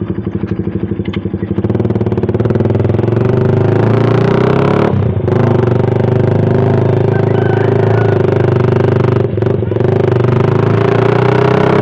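Suzuki Satria FU's 150 cc single-cylinder four-stroke engine breathing through an aftermarket DOS muffler, pulling away and accelerating under way. The engine note drops briefly at gear changes about five and nine and a half seconds in, then runs steadily again.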